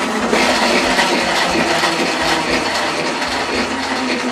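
Plastic salad spinner being spun, its basket turning with a steady whir as it flings the water out of freshly washed salad leaves.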